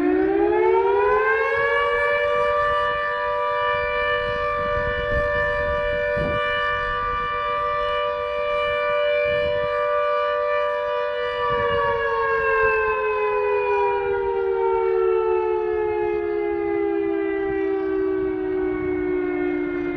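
Traditional air-raid-type warning siren, thought to be a Secomak, sounding two close notes together during its weekly test. It winds up in pitch over the first two seconds, holds a steady wail, then a little past halfway begins a slow wind-down in pitch.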